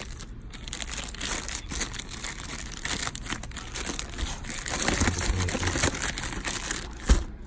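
Clear plastic wrapping on a boxed power bank crinkling and crackling as it is handled and pulled at, with one short knock about seven seconds in.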